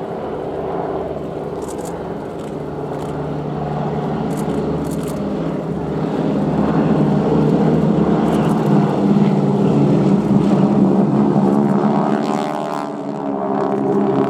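Boeing Stearman biplanes' 450 hp Pratt & Whitney radial engines running. The sound grows louder through the first half, dips briefly near the end, then rises again.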